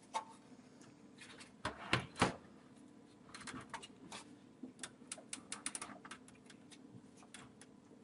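Computer power supply slid by hand into the bottom of a steel PC case: a few knocks in the first two seconds or so, then a run of light clicks and scrapes of metal on metal as it is pushed back into position.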